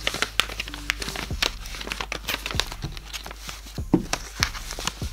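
Paper crinkling and rustling as hands handle and press paper shapes on a tabletop, with many small irregular crackles and light taps.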